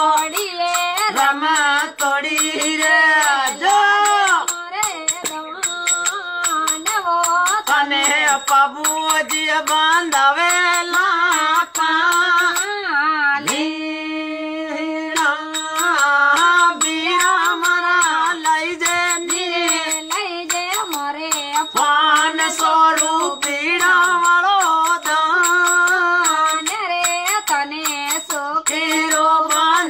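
Marwari folk music: a melody sliding and bending between notes over a steady drone, with a fast clicking beat. About halfway through, a long note is held steady.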